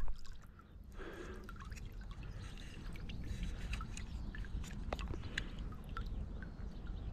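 Water dripping from a landing net just lifted out of the lake: scattered single drips over a faint, steady low rumble.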